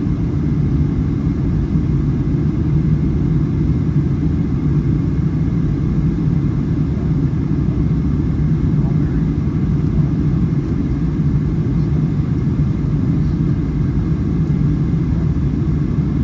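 Steady low rumble of a Boeing 737-900ER's cabin in flight: the CFM56-7B engines and airflow over the fuselage, heard from a seat behind the wing.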